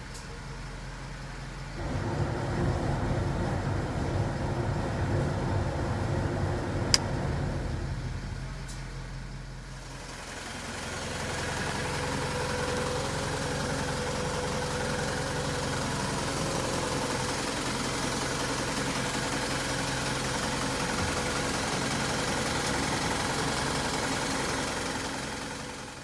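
Mitsubishi Canter 2-ton truck's engine running with the PTO engaged, turning the shaft to the hot-spring pump. It is the abnormal noise from a worn shaft bearing. The sound gets louder about two seconds in, changes around ten seconds in, then runs steadily with a faint whine.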